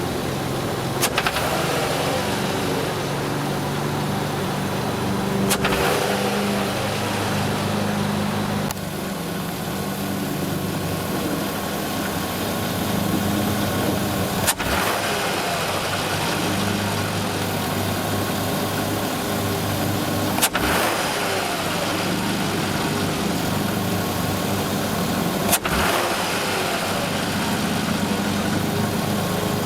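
Volkswagen Jetta GLI 24-valve VR6 engine running with a rattle, the sign of worn intake manifold shifter rod bushings and a vacuum leak at the shifter rod gasket. Sharp clicks come every few seconds over the steady engine sound.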